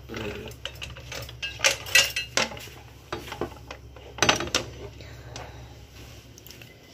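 Cutting board and hanging kitchen utensils clattering as the board is taken down from its wall hook: a run of sharp clicks and clinks, loudest about two seconds in and again just after four seconds.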